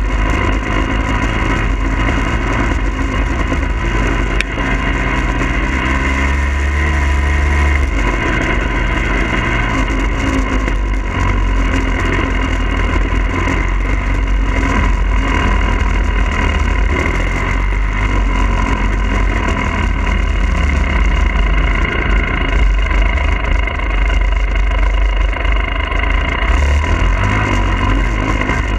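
Two-stroke engine of a Husqvarna TE300i dirt bike running under way, with heavy rumbling wind noise on the bike-mounted microphone. The revs climb steadily for a few seconds about five seconds in, then drop back.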